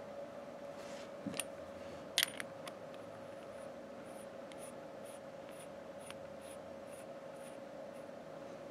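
Small metal-on-metal handling: a few sharp clicks in the first seconds, the loudest just after two seconds in, then a run of faint high ticks about two to three a second as a rebuildable dripping atomizer is twisted by hand onto the threads of a mechanical mod.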